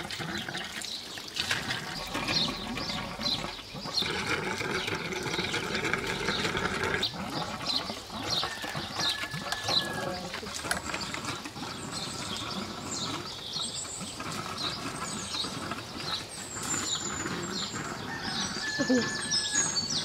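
Small birds chirping again and again, with a steady run of short high calls, over a busier stretch of animal or voice sound a few seconds in.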